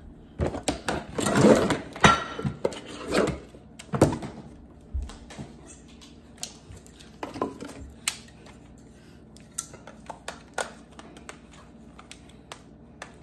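Handling noises: rustling and clattering for the first four seconds or so, then scattered light clicks and knocks.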